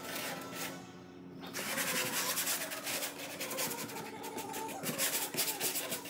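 Hand sanding block scrubbing back and forth on the wooden underside of a camper floor, taking off old primer in quick repeated rasping strokes, with a short pause about a second in.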